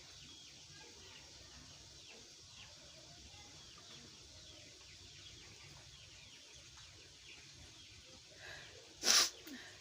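Birds chirping faintly and continually in the background. Near the end comes a short build-up, then one loud, abrupt sneeze.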